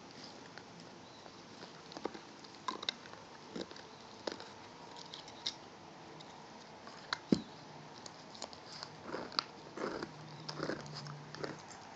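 Dogs gnawing on elk antlers: scattered clicks and knocks of teeth on antler, one sharp knock about seven seconds in, then a quick run of rasping chews near the end.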